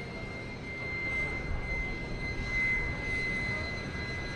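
Jet airliner's turbofan engines running at low power on the ground: a steady high whine over a low rumble.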